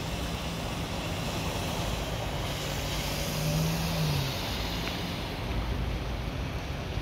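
Cars driving through deep floodwater: a low engine hum that stops about four seconds in, over a steady rushing hiss of water sprayed up by the tyres.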